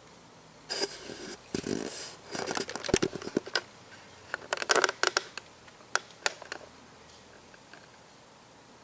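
Handling noise close to the microphone: rustling and scraping with a run of sharp, irregular clicks, starting about a second in and stopping a couple of seconds before the end.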